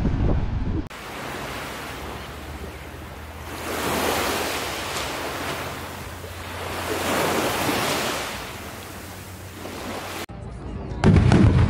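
Small waves washing onto a beach, swelling twice about three and a half seconds apart. Near the end a firework goes off with a loud bang.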